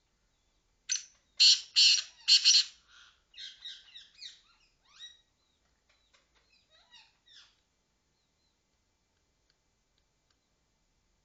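A francolin (titar) calling: three loud, harsh calls in quick succession about a second in, followed by a run of fainter, shorter notes that trail off by about seven seconds.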